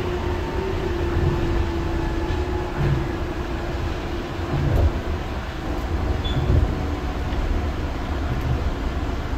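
Rubber-tyred straddle-beam monorail train of the Osaka Monorail running along its concrete track beam, heard from inside the driver's cab. It gives a steady low rumble, with a hum that fades away about two seconds in and a few short low thumps.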